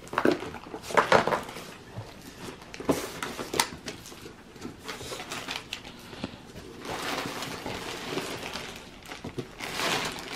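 Cardboard shipping box being opened by hand: several sharp snaps and scrapes as the flaps are pulled back, then a steadier crinkling of a large plastic bag inside from about seven seconds in.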